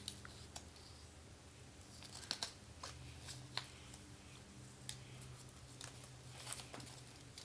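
Faint handling noises: scattered light clicks and paper rustles as small toy packaging and a paper character checklist are handled.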